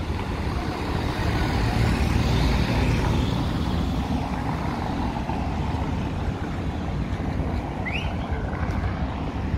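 Outdoor road traffic: a steady low rumble of passing vehicles that swells about two to three seconds in, with a short rising chirp about eight seconds in.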